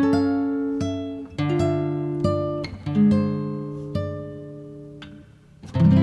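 Background music on acoustic guitar: single plucked notes that ring and fade, a short lull, then a fuller chord struck near the end that rings out.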